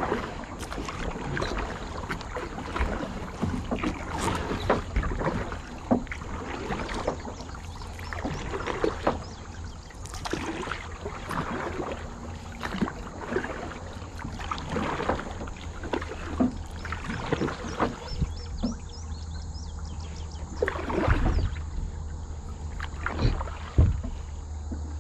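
Kayak paddling on a river: paddle blades dipping and splashing in the water, about a stroke a second in an uneven rhythm, with drips and a few louder splashes near the end, over a steady low rumble.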